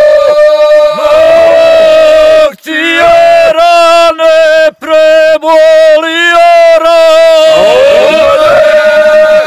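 A men's group sings a traditional Serbian rural homeland song unaccompanied, in close harmony. One voice holds a steady note under a quickly wavering, ornamented line, with two brief breaks in the sound.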